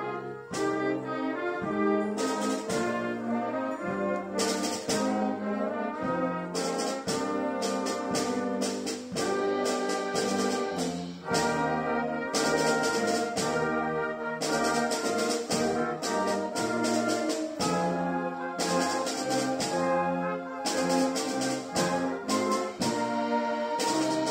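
Children's wind band playing a piece, brass to the fore, with changing held notes and percussion strokes.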